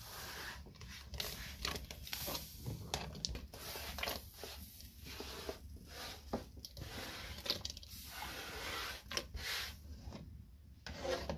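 A hand sweeping small pieces of khinkal dough across a floured wooden board and into a pot of boiling chicken broth, with irregular scraping strokes.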